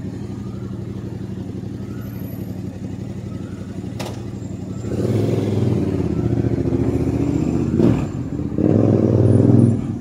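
Tabby cat purring close to the microphone: a steady low rumble that gets louder about halfway through.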